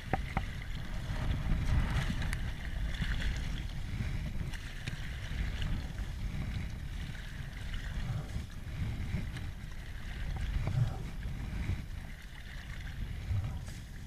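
River water moving around a raft, with a rumble of wind on the microphone and a few light knocks.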